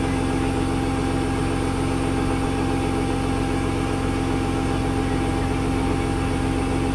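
Tow truck engine running at a steady speed, a constant hum that holds one pitch throughout.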